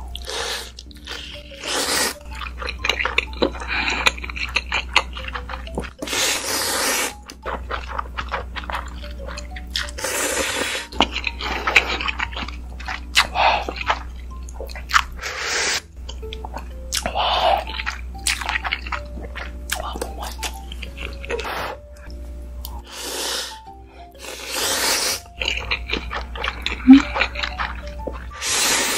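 Ramen noodles in spicy broth slurped in big mouthfuls again and again, each slurp up to about a second long, with wet chewing between, over soft background music.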